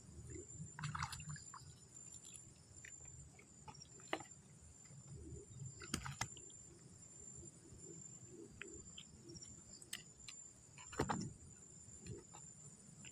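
Insects chirring steadily in one high, unbroken tone, with scattered sharp clicks and knocks of handling close by, the loudest about six and eleven seconds in.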